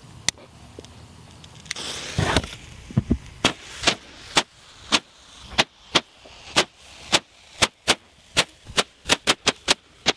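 Roman candle fireworks firing. A short hissing rush about two seconds in is followed by a long run of sharp pops as the shots launch, roughly two a second at first and coming faster toward the end.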